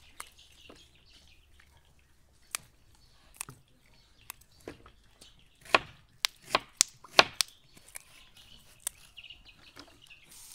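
Fresh bean pods being snapped into pieces by hand: irregular crisp snaps, with a quick run of louder snaps a little past the middle.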